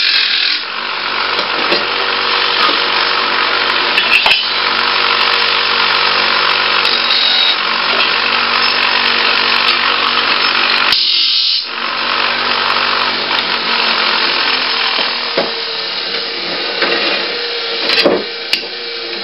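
Craftsman bench grinder running with non-magnetic scrap metal pressed against the grinding wheel in a spark test for stainless steel versus aluminum: a harsh grinding noise over the motor's steady hum. The grinding breaks off briefly about eleven seconds in, then eases toward the end, leaving mostly the motor hum and a couple of sharp knocks.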